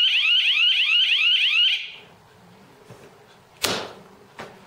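Electronic alarm sounding a fast run of rising chirps, about four or five a second, which stops about two seconds in. Then a sharp click and a fainter second click from the SOS toggle switch and its lift-up cover on a rally car's safety unit being operated.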